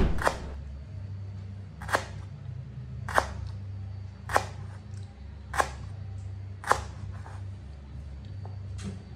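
Knife chopping lemongrass on a wooden cutting board: a sharp chop about every second and a quarter, over a steady low hum.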